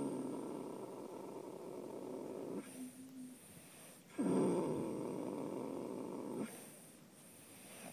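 A horse snoring in its sleep: two long snores, the first ending about two and a half seconds in, the second starting about four seconds in and lasting a little over two seconds.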